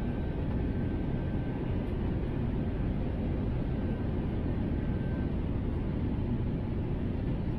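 Airbus A321 cabin noise heard from a window seat beside the engine on descent: a steady rumble of engines and rushing air. A faint high steady whine stops about five seconds in.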